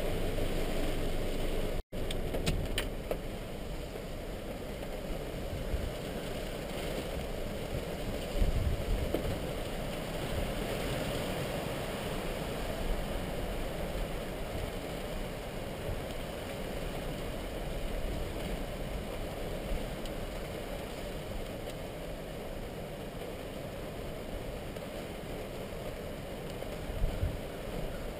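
Hurricane wind and rain as a steady rushing noise, with heavy gusts rumbling on the microphone, the strongest about eight seconds in and again near the end. The sound drops out for a moment about two seconds in.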